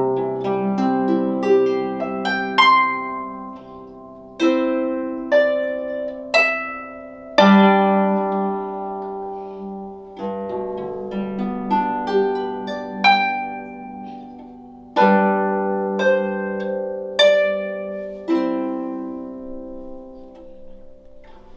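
Solo lever harp being plucked: single notes and chords that ring on and fade, with a strong chord struck every few seconds. Near the end the playing grows quieter.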